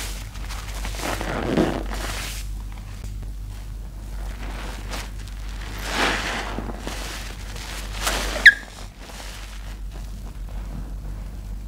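Wet squelching and sloshing of soapy sponges squeezed by rubber-gloved hands in a basin of foamy water, coming in several swells. About eight seconds in there is one short, sharp squeak, the loudest sound.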